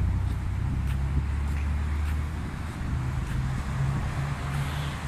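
City street traffic with a low, steady engine hum from nearby vehicles. The hum is strongest for the first two seconds, then eases, leaving general road noise.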